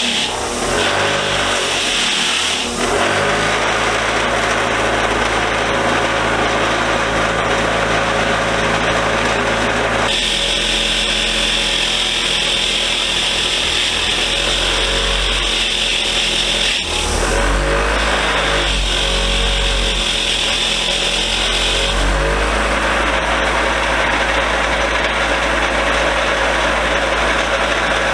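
Power-driven wire wheel running and scrubbing rust off the steel parts of a machinist vise. It is a steady loud whir and scratch whose tone shifts abruptly several times.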